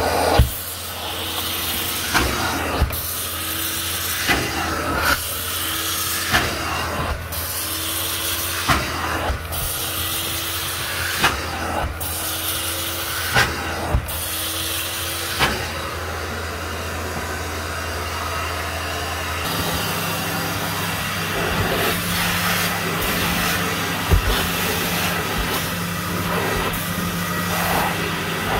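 Carpet extraction machine running with a steady vacuum hum and hiss as its stainless steel hand tool is drawn across stair carpet, with pairs of sharp knocks about every two seconds over the first half. About two-thirds of the way through the machine's hum steps up to a higher steady pitch and the knocks stop.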